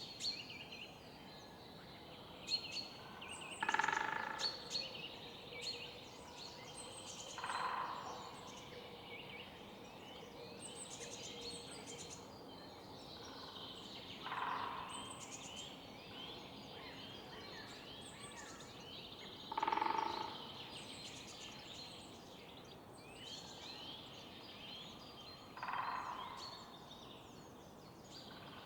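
Spring morning bird chorus of many small birds chirping, cut through five times by a louder, lower, harsh call of about a second each, spaced roughly five seconds apart.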